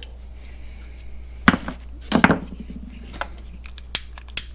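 Small hard objects knocking and clattering on a workbench as tools are handled: a handful of sharp knocks, the loudest about one and a half and two seconds in, over a low steady hum.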